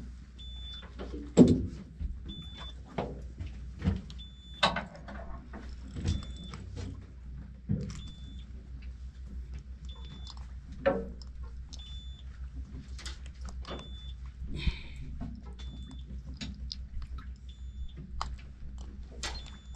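Fishing boat's engine running with a steady low hum, with scattered knocks and clacks of gear on deck, the loudest about a second and a half in, and a short high beep repeating about every two seconds.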